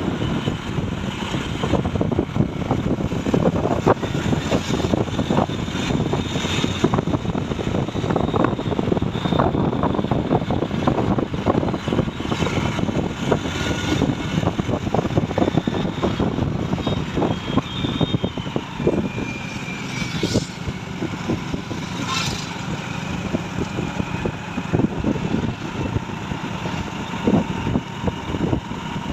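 Truck on the move: its engine runs steadily under frequent rattles and knocks.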